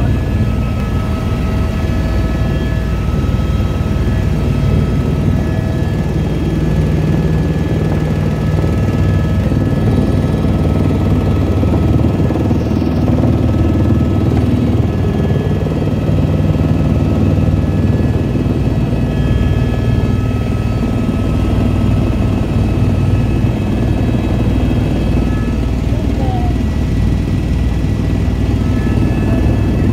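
Helicopter in flight heard from inside the cabin: a loud, steady drone of engine and rotor, with several faint steady whining tones above it.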